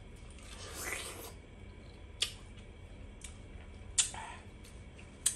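Close-up eating sounds: a person biting into and chewing a fresh spiral-cut pineapple. A wet, crunching swell about a second in, then three sharp, crisp clicks over the next few seconds.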